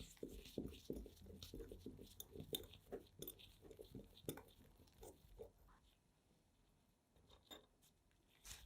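Restored antique pencil sharpener cutting a pencil: a faint, rapid run of small crunching, scraping clicks as the wood is shaved. It thins out after about five seconds.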